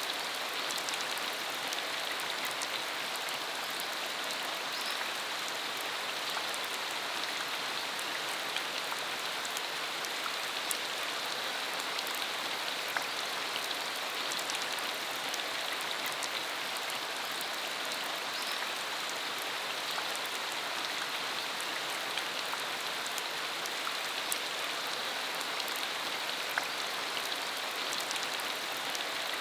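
Steady rain falling on a dirt road, an even hiss scattered with small drop ticks.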